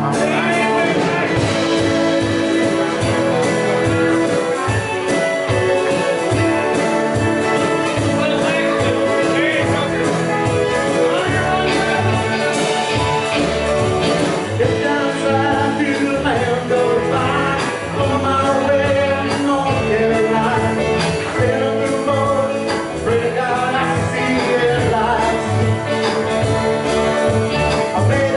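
Live band playing a country song: electric guitars, bass and drums with a sung lead vocal, steady and loud throughout.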